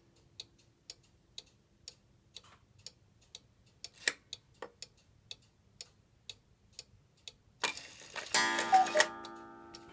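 Mechanical Black Forest cuckoo clock ticking about twice a second, with a couple of louder clicks about four seconds in as the minute hand is advanced. Near the end the cuckoo mechanism goes off: a short hiss of the bellows, then the loud pitched cuckoo call with a strike that keeps ringing and slowly fades.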